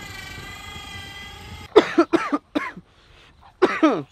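An electric boat-trailer winch whines steadily. After about a second and a half it gives way to a man coughing hard several times into his shirt, in two bouts. He is recovering from what he calls potentially strep throat.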